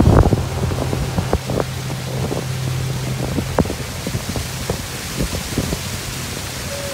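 Wind rumbling on the microphone, with a low steady hum and scattered small knocks.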